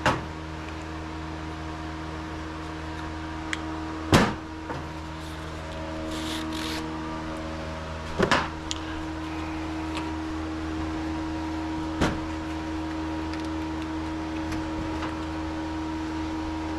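Steady mechanical hum, with four sharp knocks spaced a few seconds apart and a short hiss about six and a half seconds in.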